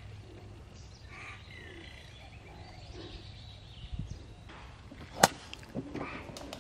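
A golf club swishing through a full swing and striking a ball sitting down in the grass, one sharp crack of impact about five seconds in.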